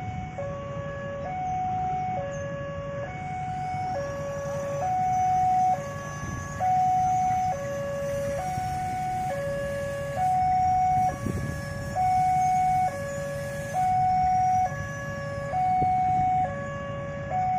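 Railway level-crossing warning alarm sounding: an electronic two-tone signal alternating steadily between a higher and a lower note, each held for about a second, which warns that a train is approaching. A low rumble of waiting traffic runs underneath.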